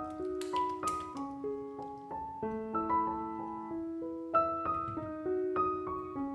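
Gentle background piano music, a steady run of single notes and chords.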